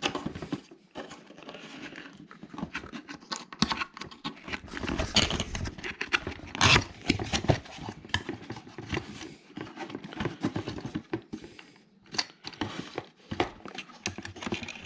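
A cardboard box being opened and its packaging handled: irregular rustling and scraping with scattered knocks and clicks.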